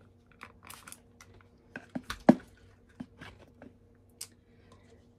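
Clear plastic cups and containers being handled: a scatter of light clicks and taps, with one louder knock just past two seconds in.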